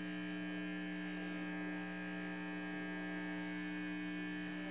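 Steady electrical mains hum in the audio feed, a constant tone with a stack of overtones and no change in level.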